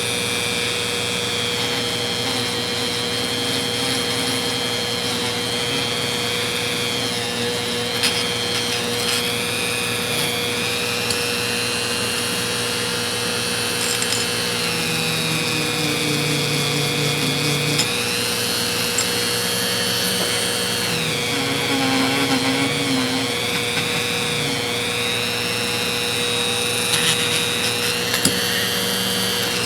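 Dremel rotary tool fitted with a tiny wheel, running continuously against the ratchet's metal. Its high whine dips in pitch several times as it is pressed into the work, then recovers.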